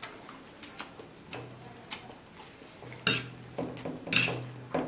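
Metal forks clicking and scraping on a ceramic plate while instant noodles are lifted and eaten. Two louder noodle slurps come about three seconds in and just after four seconds.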